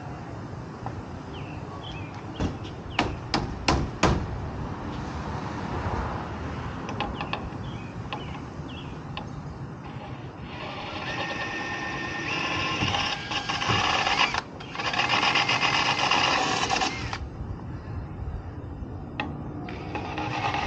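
A handful of sharp taps about 2 to 4 seconds in. Then a power drill runs under load in two long spells: one from about halfway to most of the way through, with a brief stop in the middle, and another starting near the end, drilling or driving fasteners for the ladder rack into the truck topper's roof.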